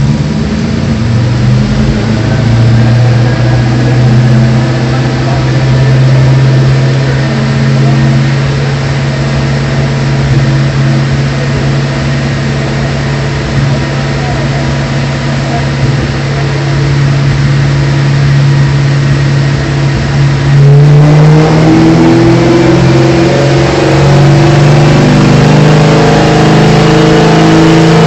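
Supercharged 4.6-litre V8 of a 2003 Ford SVT Cobra running on a chassis dyno. It holds a level pitch for most of the stretch; about three quarters of the way through it steps up and gets louder, with the revs and a thin high whine climbing slowly.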